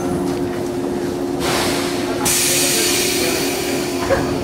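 JR 115-series electric train standing at a platform, heard from inside the car: a steady hum, then a loud hiss of released compressed air that builds about a second and a half in and comes on fully about two seconds in, with a short click near the end.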